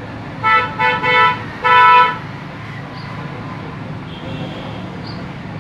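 Vehicle horn honking four times in quick succession, the last honk the longest and loudest, over a steady low hum.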